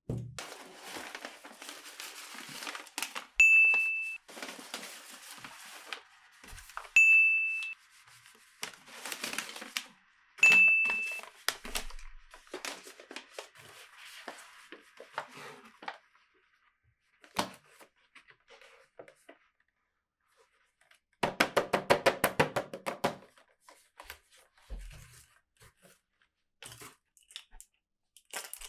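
Toy packaging being torn open and crinkled, with three short high dings about three and a half seconds apart in the first half, then a brief rapid run of clicks near the end.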